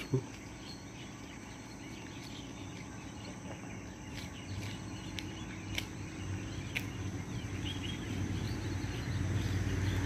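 Insects chirring steadily in the undergrowth, with a few short sharp ticks between about four and seven seconds in and a low rumble growing toward the end.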